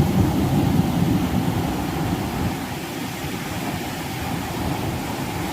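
Wind buffeting the microphone, a steady low rumble, with sea surf beneath it.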